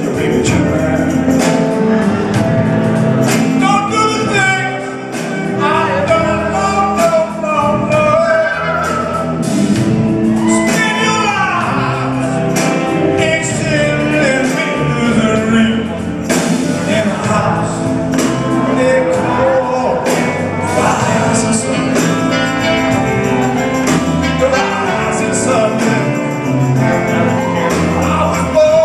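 Live rock band playing, with a man singing lead into a microphone, heard from among the concert audience.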